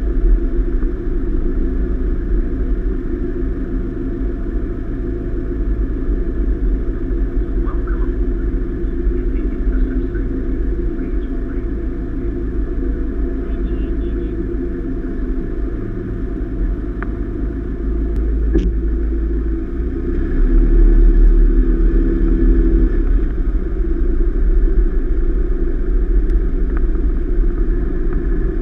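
Low, steady engine and road rumble of a vehicle creeping along a car ferry's deck, heard muffled through a camera mounted on the vehicle. The rumble swells louder about twenty seconds in.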